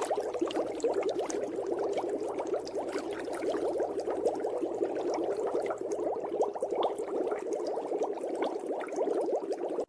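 Continuous dense bubbling of water, a steady stream of many small bubbles.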